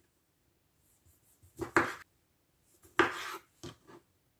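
Kitchen knife cutting cherry tomatoes in half on a wooden cutting board, the blade knocking on the board in short strokes: two about a second and a half in, then a louder one near three seconds followed by two lighter ones.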